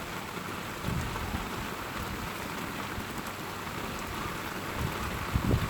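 Steady rain falling, with low rumbles of thunder about a second in and again, louder, near the end.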